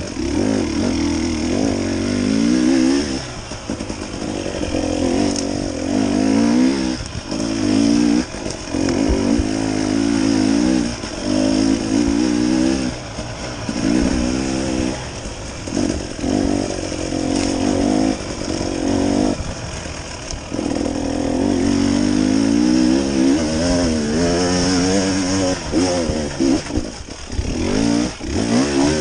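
Dirt bike engine revving up and down over and over as it is ridden on a tight woodland trail, the throttle opened in bursts and rolled off between them.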